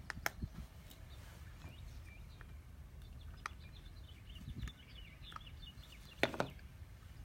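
Outdoor ambience with small birds chirping faintly, and a few sharp clicks, the loudest about six seconds in.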